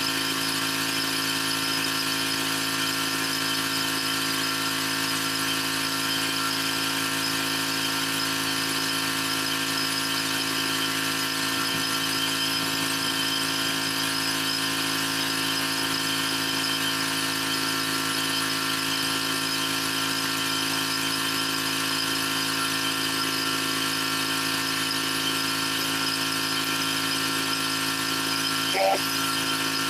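Pressure washer running steadily while its wand sprays the paver deck, a constant machine drone with a high hiss. A short knock about a second before the end.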